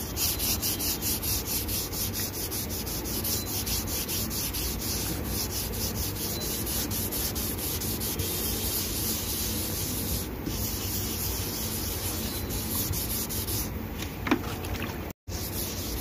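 Hand sanding of a primed spot on a car bumper with sandpaper on a flexible rubber pad: quick, even back-and-forth rubbing strokes, several a second. The pad follows the bumper's curves to smooth the primer before basecoat.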